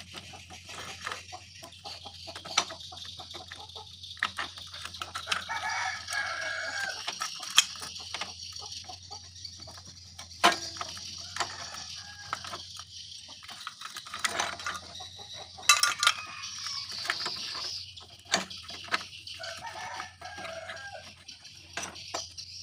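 A rooster crowing a few times, each call lasting a second or two, with hens clucking. Sharp metal clicks and clinks from clutch parts being handled and fitted sound in between.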